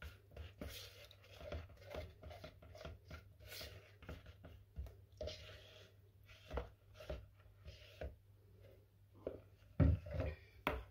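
A spatula scraping and tapping against plastic mixing bowls as a melted cocoa butter mixture is scraped out and stirred into baking soda and citric acid powder: many short irregular clicks and scrapes. Near the end come a few louder knocks as a bowl is handled and set down, over a low steady hum.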